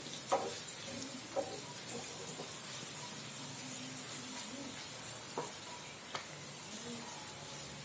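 Boiled potato pieces frying in oil in a pan: a steady sizzle, with a few sharp clicks of a utensil stirring them against the pan.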